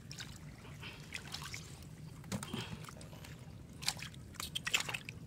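Hands splashing and sloshing in shallow muddy water, with a few sharper slaps about four to five seconds in.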